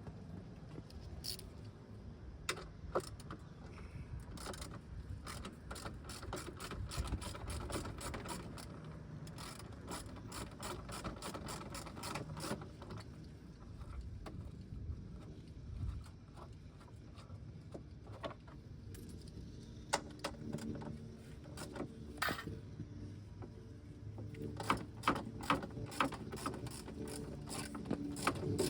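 Hand ratchet wrench clicking in quick runs, with pauses between them, as the mud guard's mounting bolts are worked loose.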